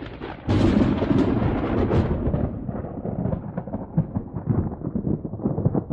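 A peal of thunder: a sudden loud rumble about half a second in, with crackling, slowly fading.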